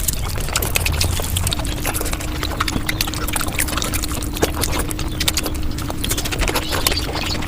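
Close-up eating sounds played back sped up: mutton being chewed with rapid, dense wet clicks and lip-smacks.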